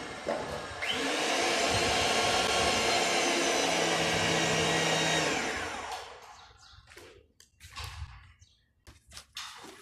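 Rothenberger power pipe-threading machine's electric motor spinning up about a second in, running steadily, then switched off and winding down a little after five seconds. A few scattered knocks and clatters follow.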